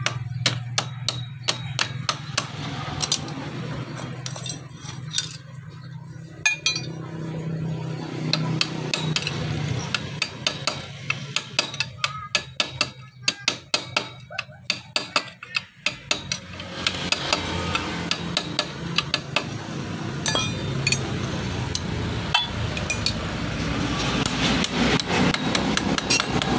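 Hammer striking a metal punch held against the Yamaha Jupiter Z's centrifugal clutch shaft, driving the clutch boss (collar) into place: many sharp metal taps in quick runs, thinning out about two-thirds of the way through. A steady low hum sits underneath.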